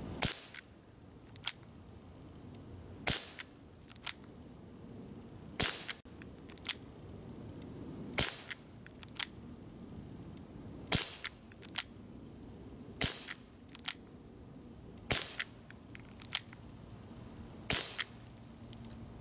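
A Gamo PR-776 CO2 pellet revolver firing eight shots, one every two to three seconds. Each shot is a sharp crack, followed about a second later by a fainter click.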